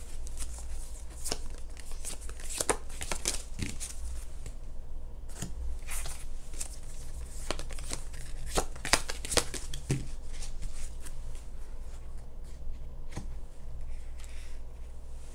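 Oracle cards being handled and laid out on a table: irregular light snaps and slaps of card stock, over a steady low hum.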